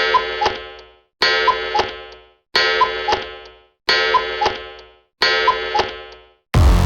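A short ringing, chime-like electronic sound effect played five times at even intervals, each one dying away. Loud electronic music with a heavy beat comes in just before the end.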